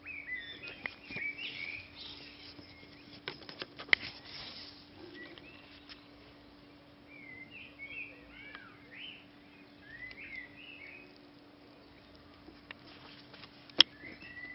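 Small birds chirping in short quick bursts of high notes, on and off, with a few sharp clicks; the loudest click comes near the end.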